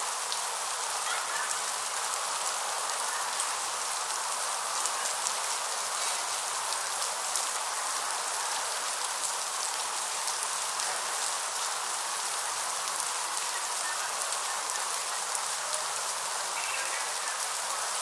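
Freezing rain falling steadily: an even, dense hiss of fine drops with many small ticks, mostly high-pitched with little low end.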